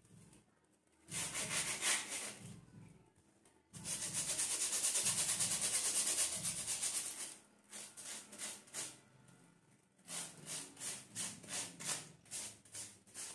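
A plastic comb scraped through the bristles of a cushion hairbrush to clear out dirt. The strokes come in scratchy bursts, with a long run of fast continuous strokes in the middle, then separate strokes at about three a second near the end.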